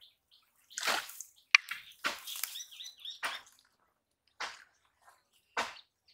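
Muddy pond water splashing and sloshing as a hand fishing net is dragged and lifted through it, in short separate splashes about once a second.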